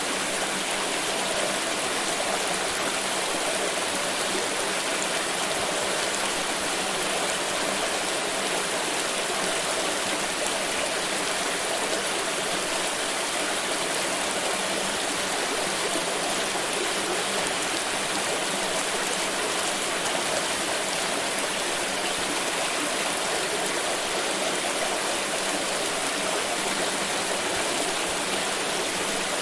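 Water pouring and splashing in a steady, unbroken flow, a constant rushing sound with no pauses or changes.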